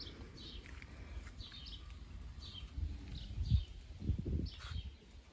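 Small birds chirping: a string of short, high chirps repeating every half second or so, with a few low thuds about halfway through.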